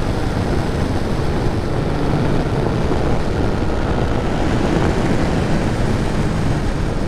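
Yamaha Tracer 900 GT three-cylinder motorcycle cruising at a steady speed, its engine running under a steady rush of wind noise over the camera microphone.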